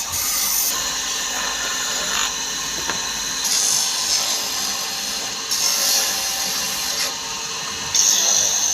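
Power tool cutting into wood, running steadily. Several stretches of louder, higher hiss come as the cut bites harder, one near the end.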